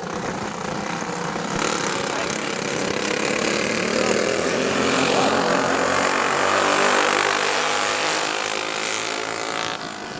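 A pack of dirt-oval racing go-karts with Briggs & Stratton Animal four-stroke engines running hard at high revs. Several engine notes overlap, swelling to their loudest around the middle, then fading and dropping in pitch toward the end as the karts pass.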